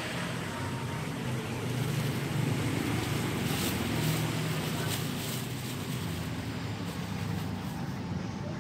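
Electric countertop blender running steadily as it blends a drink.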